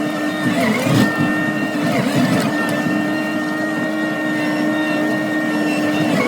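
Small engine running at a steady high speed, its pitch dipping briefly about a second in and again near two seconds.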